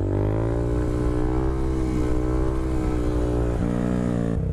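Honda Grom's 125 cc single-cylinder engine pulling under throttle. The note holds with slight rises and falls, then drops about four seconds in as the throttle comes off or a gear changes. Wind rush on the microphone sits over it.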